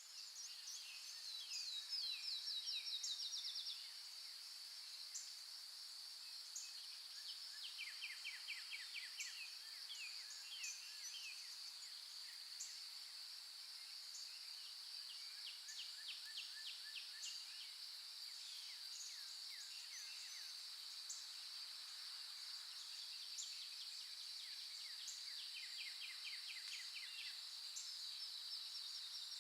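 Forest dawn chorus: a steady high insect drone with birds singing in rapid trills of quick repeated notes, several times over. The loudest trill comes in the first few seconds, with occasional short high chirps between.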